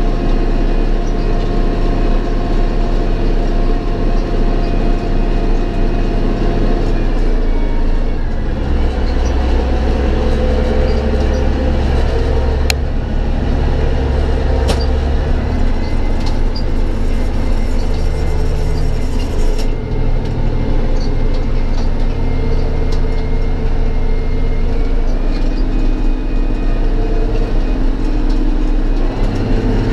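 Belarus MTZ-2022.3 tractor's six-cylinder turbodiesel running steadily, heard from inside the cab. Its note changes about eight seconds in and again near the end as the engine speed shifts, and there are two sharp clicks in the middle.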